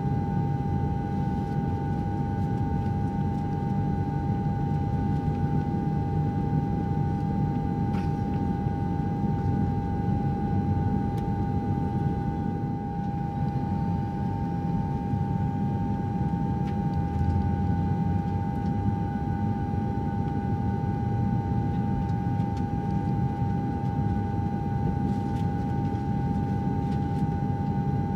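Airliner cabin noise in flight: a steady, deep rumble of the jet engines and airflow, with an even hum held on top.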